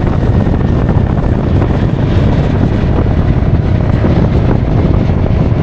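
Steady, loud wind buffeting the microphone of a rider on the move, with the Honda PCX scooter's engine running underneath.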